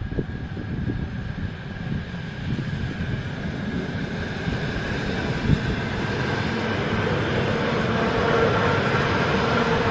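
ЭТ2М electric multiple unit passing on the track, its wheel and track noise growing steadily louder as it comes close. There is a single sharp knock about halfway through.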